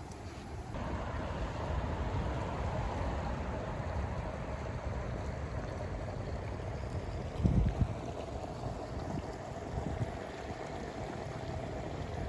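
Steady outdoor rush of wind and water with a faint steady hum, and wind buffeting the microphone about seven and a half seconds in.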